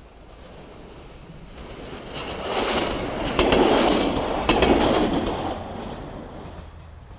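A single-car diesel railcar, an SNCF X 73500 type, passing close by. Its engine and wheel noise swell to a peak midway and then fade. At the peak come two quick pairs of clacks about a second apart, its wheels crossing a rail joint.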